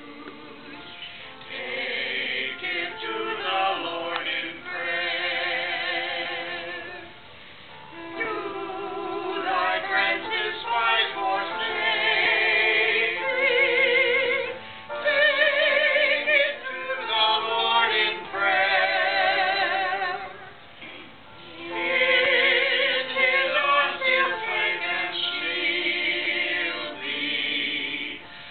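A small group of men and women singing together, their voices wavering with vibrato, in long phrases with short pauses about a quarter and three quarters of the way through.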